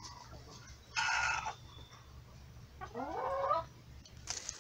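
Chickens calling: a short harsh squawk about a second in, then a rising, drawn-out call about three seconds in.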